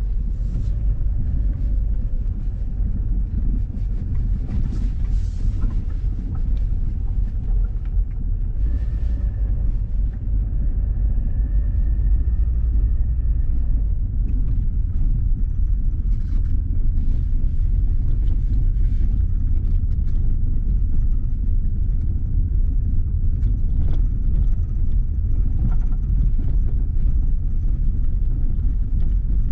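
Lada Vesta heard from inside the cabin, driven slowly over a rough dirt road: steady tyre and road rumble with scattered light clicks and rattles as the suspension works. No clear knock from the new ASOMI struts stands out, and afterwards the listener says he heard not a single one.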